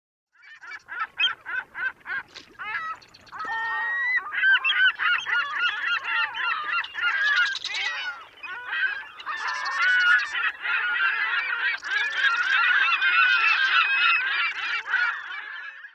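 Red-billed blue magpies calling: first a quick series of short, repeated harsh notes, then from about four seconds in a dense, overlapping chorus of raucous calls from several birds.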